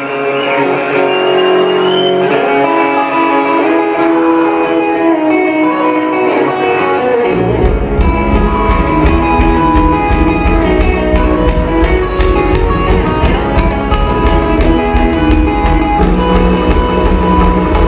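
Live band playing: the song opens on electric guitars alone, then the drums and the rest of the band come in about seven seconds in, filling out the low end with a steady cymbal beat.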